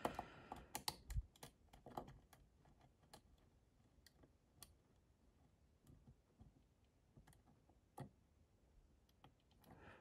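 Faint, irregular metallic clicks and ticks of a dimple pick working the pins inside an ABS Avocet dimple lock cylinder held under tension, as the security pins are being picked. The clicks come thickly in the first couple of seconds, then thin out, with one sharper click about eight seconds in.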